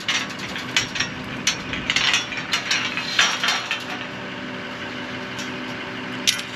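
Irregular sharp metal clicks and clinks from hand work on windmill pump parts, frequent for the first four seconds and then only a few.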